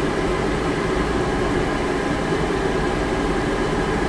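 Steady air-conditioning hum with a low rumble, even throughout.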